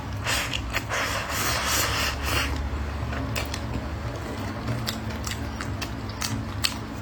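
Close-miked eating sounds: a stretch of dense crackling crunches in the first two and a half seconds, then scattered sharp clicks and smacks.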